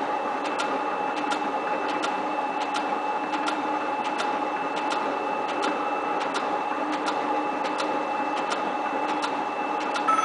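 7305T metal shaper running: a steady machine hum with a held tone and a regular click about three times a second.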